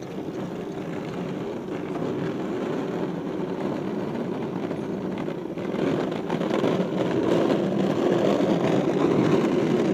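The hard plastic wheels of a child's ride-on toy rolling over asphalt make a steady, gritty rumble that gets louder about six seconds in.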